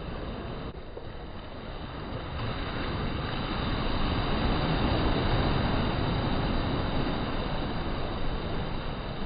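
Small sea waves breaking and washing up the shore. The surf swells to its loudest about four to six seconds in, then eases, with wind rumbling on the microphone.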